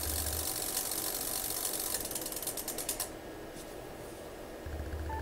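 Yaesu FT-991's internal automatic antenna tuner relays chattering in rapid clicks while it searches for a match on 17 metres, stopping about three seconds in. The long search is a sign that it struggles to tune the long wire on this band.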